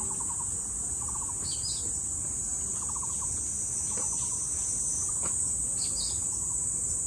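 Cicada chorus, a steady high buzz throughout, with a few short paired bird chirps and a repeated short, lower pulsing trill.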